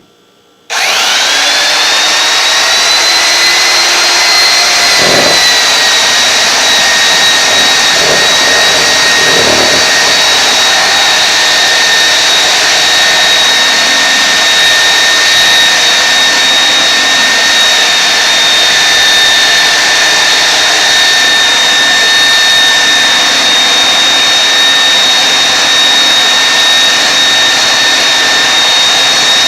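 Belt floor sander switched on less than a second in, its motor whine rising quickly and then holding steady under a loud rush of sanding noise as it works an old vinyl-tiled floor. A few low knocks come in the first ten seconds.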